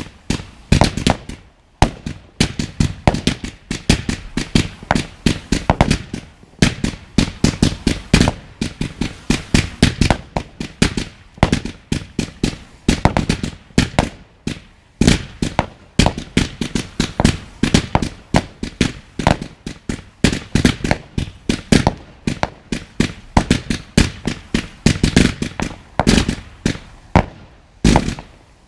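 Fireworks barrage fired from the ground: a rapid, continuous string of launch thumps and bursting bangs, several a second, that stops abruptly near the end.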